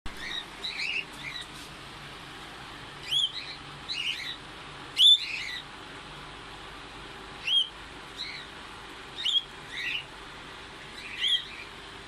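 Small pet parrots chirping: short, sharp chirps in separate bursts every second or two, the loudest about five seconds in.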